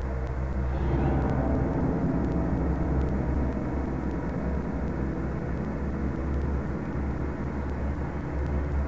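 A low, steady rumbling noise that swells about a second in and holds.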